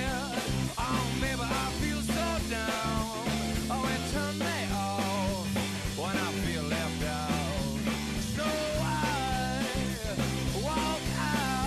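Upbeat rock background music with a steady bass line and a sung or lead melody line.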